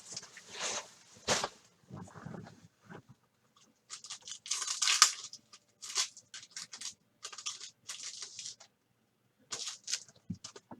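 Plastic wrapping of trading-card packs being torn open and crinkled by hand, in irregular crackly bursts.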